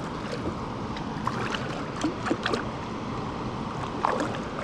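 Moving river water around a kayak, a steady wash with a few short splashes and clicks scattered through it.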